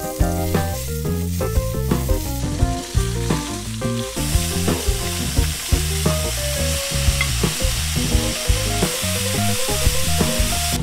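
Chicken sizzling and frying in oil in an enameled cast-iron pan while a wooden spatula turns and stirs it. The sizzle grows louder about four seconds in as lima beans and green beans go into the hot fat, then eases near the end. Background music with a steady beat plays throughout.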